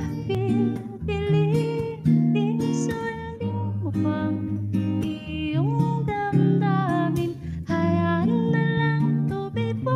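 A woman singing a slow melody with held notes, accompanied by a strummed acoustic guitar.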